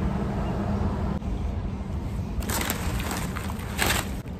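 Paper food packaging crinkling in two short bursts, about two and a half and nearly four seconds in, over a low steady rumble.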